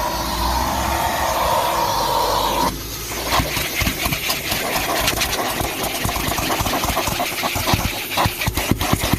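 Numatic Henry HVR200P vacuum cleaner running with a steady rushing whine. About a third of the way in, the pitch drops and the tone changes, and from then on rapid clicking and rattling sounds over the running motor as the tool works.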